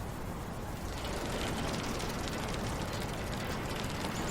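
Crackling static hiss on a bad telephone line, growing louder about a second in.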